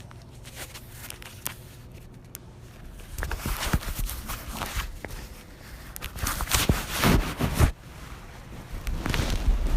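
Irregular rustling and handling noise with scattered clicks and low thumps, growing louder after about three seconds; the motorcycle's engine is not yet running.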